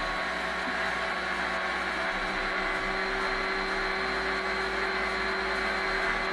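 Electric planer's motor running steadily at full speed with a constant whine and hiss.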